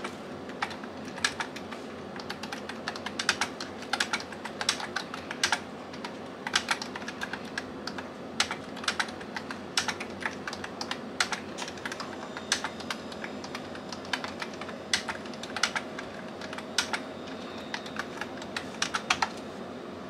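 Typing on a MOFii Sweet wireless keyboard with round keycaps: a stream of irregular key clicks that stops just before the end.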